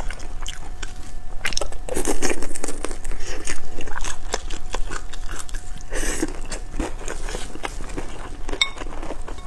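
Close-miked eating: biting into and chewing pan-fried pork buns (shengjian bao) with crisp browned bottoms, full of short wet mouth clicks. Louder bites come about two seconds in and again about six seconds in.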